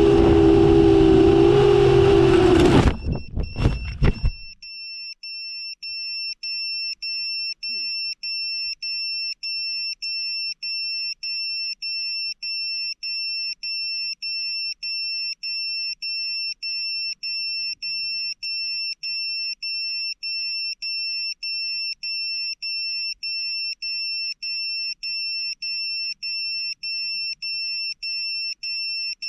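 7-inch FPV quadcopter's motors and propellers whining at high throttle, cutting off about three seconds in with a few crackles. Then an electronic beeper sounds a steady high beep about one and a half times a second, without a break.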